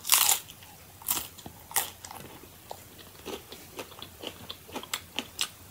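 Biting into a crunchy hard-shell chicken taco, then chewing the mouthful: a loud crunch at the bite, two more crunches in the next two seconds, then a string of smaller crunches.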